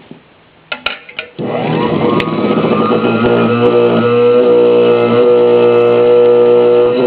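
Vintage Thur-O-Mixer single-speed milkshake mixer: a few clicks, then about a second and a half in its electric motor starts, whining up to speed and running steadily with a strong hum.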